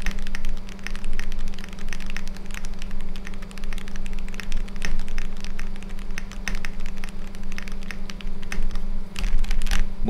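Continuous fast typing on a GADUS 60% mechanical keyboard with dye-sublimated PBT keycaps: a dense, unbroken run of key clacks over a steady low hum.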